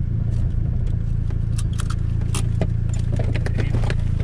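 Inside a car cabin: steady low engine and road drone, with irregular clicks and rattles over it. The car is being driven on a tire the crew believes has gone flat.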